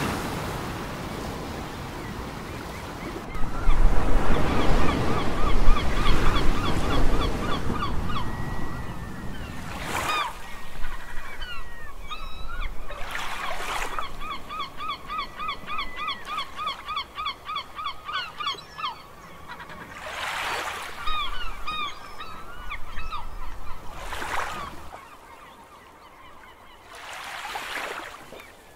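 Waves breaking and washing ashore, rising and falling in surges. Over them a bird calls in two long runs of quick, evenly repeated honking notes, about four a second, one starting a few seconds in and the other through the middle.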